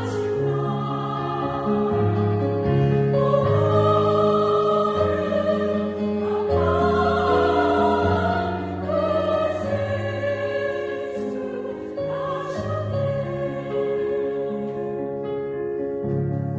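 A small mixed vocal ensemble singing a Christmas hymn in several-part harmony, in a classical style, with long held notes.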